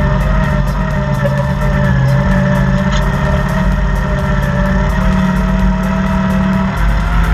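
A Honda Foreman 500 ATV's engine running at a steady cruising pace, with a steady whine on top that drifts a little in pitch.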